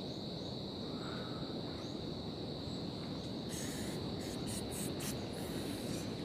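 Insects calling in a steady high-pitched drone over a low, even rushing background; a little past halfway, several louder, higher buzzing pulses come in quick succession for about two seconds.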